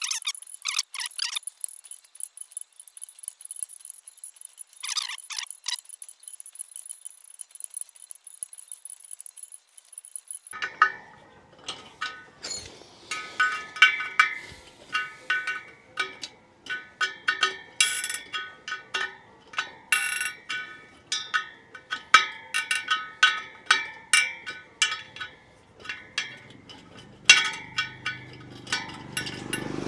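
Background music with chime-like metallic notes over a steady beat.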